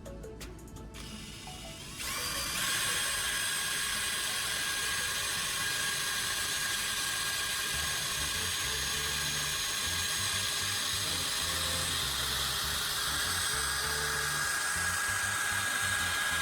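Electric drill running at steady speed, spinning a welding rod as its flux coating is scraped off, with a constant high whine and a scraping hiss. It starts about two seconds in and cuts off abruptly at the end.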